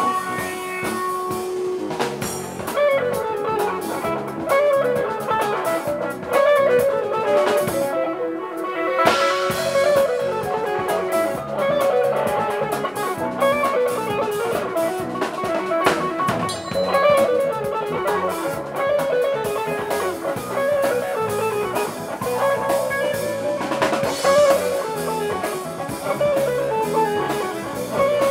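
Live band music: guitar playing repeated falling phrases over a drum kit, through stage amplifiers.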